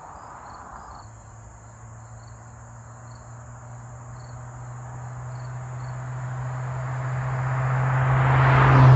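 2007 Lincoln MKZ's 3.5-litre V6 through Flowmaster Delta Flow 40 Series mufflers, rolling by at a steady speed. The exhaust drone holds one steady note and grows louder as the car approaches, loudest as it reaches the camera at the very end. Faint, evenly repeated high chirps come and go in the first part.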